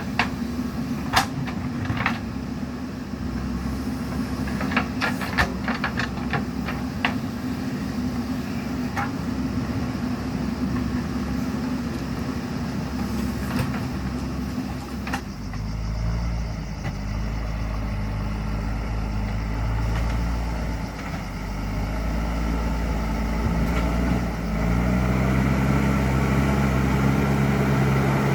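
JCB 3DX Super backhoe loader's diesel engine running, with a few sharp clicks or knocks in the first several seconds. About halfway through the engine note deepens and grows stronger, and it rises again near the end as the machine works under more load.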